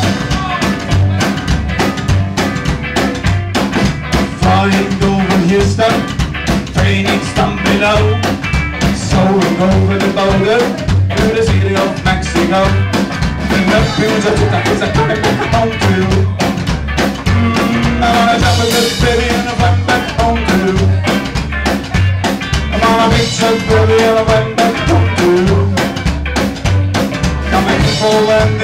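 Live band playing an instrumental break without vocals: upright bass and drum kit keep a steady beat while an electric guitar plays a wandering melody line above them.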